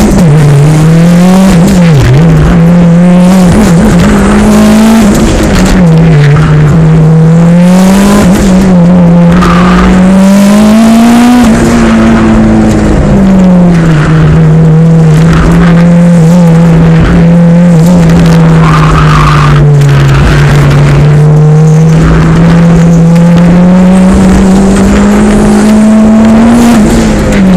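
1999 Mitsubishi Eclipse GSX's turbocharged four-cylinder engine driven hard through an autoslalom run, very loud, its pitch rising and falling as it accelerates and lets off between cones. Brief tire squeals come in the turns.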